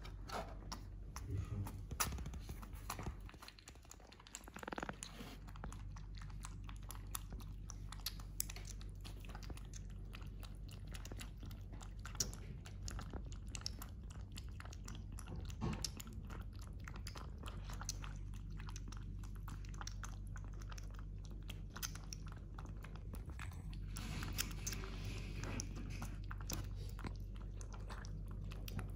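Kitten eating from a plastic bowl: a fast, continuous run of small chewing and mouth clicks.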